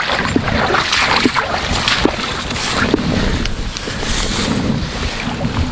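Footsteps through tall dry grass, the stems rustling and swishing against legs and boots in a string of crackles, with wind buffeting the microphone as a low rumble.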